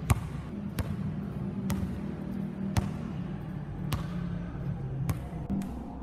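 Basketball dribbled on a concrete floor: six sharp bounces, roughly one a second.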